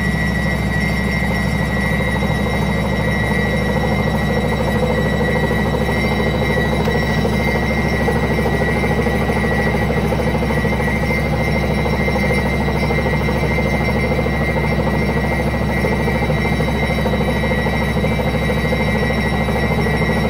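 Indesit WSB5085 washing machine with its drum spinning steadily, a constant mechanical rumble with a thin high whine running through it.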